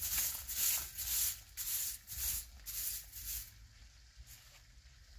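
Footsteps crunching on rough, dry ground, about two steps a second, stopping about three and a half seconds in.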